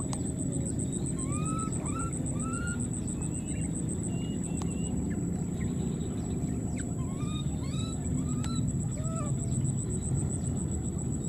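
Infant macaque giving short, high, rising-then-falling cries over and over, in one bout early on and another from about six seconds in. These are the distress calls of a soaked, cold baby monkey. Beneath them runs a steady low rumble.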